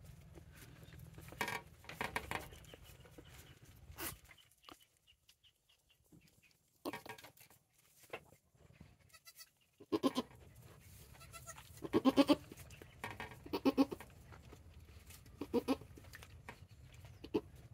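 Goats bleating: a string of short calls a second or two apart, the loudest about twelve seconds in.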